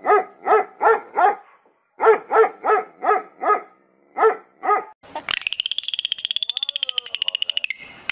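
A dog barking in three quick runs of short barks, about three a second. About five seconds in, the barking gives way to a dolphin's high whistle, chopped by a rapid train of clicks.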